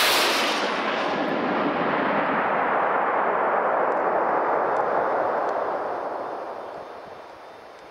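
Small experimental rocket's motor firing at lift-off: a loud rushing roar that starts abruptly, grows duller as its high end fades, and dies away over the last three seconds or so as the rocket climbs away.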